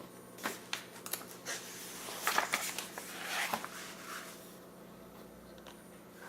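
Paper rustling with a few light taps and knocks, a run of short handling noises: a picture book being handled, its pages moved.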